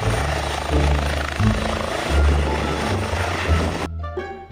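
Helicopter rotor and engine noise, a steady rush over background music with a bass line, cutting off suddenly about four seconds in.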